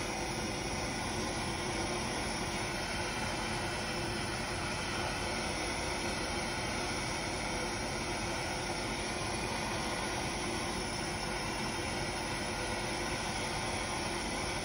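Harbor Freight propane torch burning steadily with an even, constant hiss, its flame heating aluminum for brazing with aluminum brazing rods.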